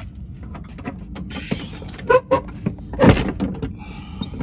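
Steady low outdoor rumble with phone handling noise and scattered knocks, a loud thump about three seconds in, and a short high-pitched sound just before the end.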